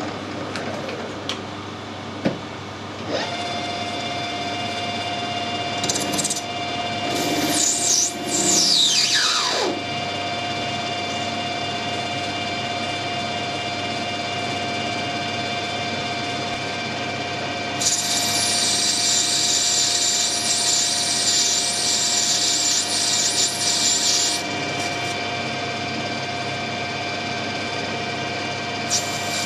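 A metal lathe's motor starts about three seconds in and runs with a steady hum. Brass stock is machined on it, with a stretch of high, hissing cutting noise in the second half and another near the end.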